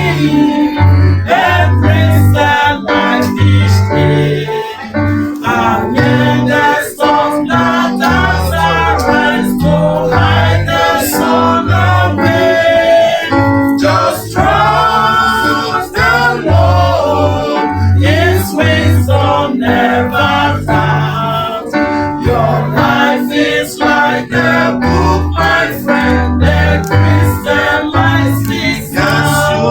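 Church choir singing a gospel worship song with instrumental accompaniment and a steady bass line.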